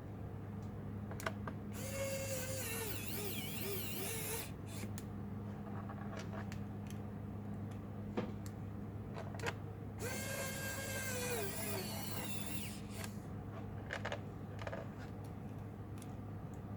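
Small electric screwdriver running twice, about two and a half seconds each time, its whine wavering in pitch as it turns the laptop's screws. Small sharp clicks of parts being handled come between the two runs.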